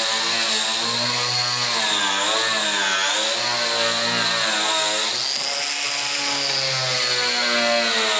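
Milwaukee HD18 cordless brushed angle grinder running a 3M Scotch-Brite purple strip disc against a steel car door, stripping paint. The motor whine dips in pitch and recovers a few times as the disc is pressed into the panel, most clearly about two to three seconds in and again around five seconds.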